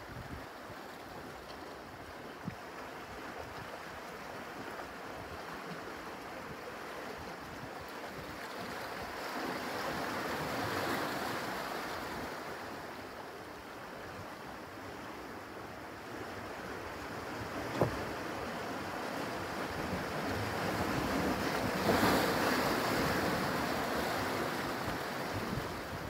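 Small ocean waves washing in against a rocky shoreline, the surf swelling twice, about ten seconds in and again a little past twenty seconds. A single sharp click comes shortly before the second swell.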